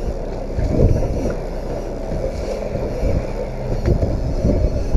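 Small fishing boat's outboard motor running steadily, mixed with wind buffeting the microphone and water against the hull.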